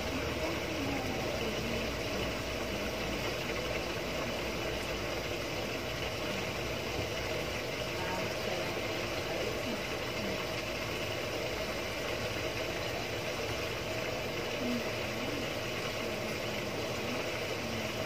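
Samsung Wobble WA65H4200SW 6.5 kg top-load washing machine running its cycle with a steady, even noise and no knocking.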